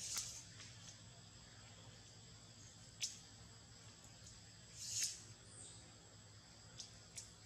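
Faint forest ambience: a steady high insect drone, with five short, high squeaks spread through it, the loudest and longest about five seconds in.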